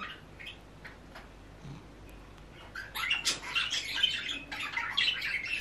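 A bird chirping and twittering in short high-pitched bursts, starting about halfway through after a quiet stretch with a few faint ticks.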